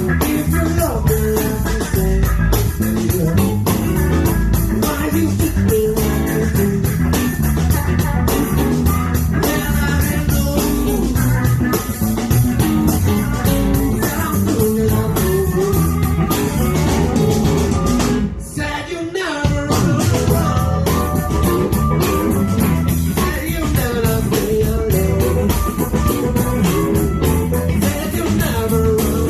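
Blues band playing live: electric guitars, bass guitar and drum kit in a steady groove, with a brief dip in the sound about two-thirds of the way through.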